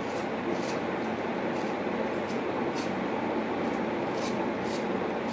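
A steady mechanical whooshing hum, the loudest sound throughout, with a few faint, short, irregular scrapes of a kitchen knife peeling the skin off a frozen tomato.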